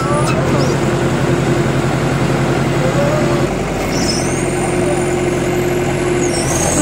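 Engine driving a hydraulic log splitter, running steadily, its note dipping slightly about halfway through.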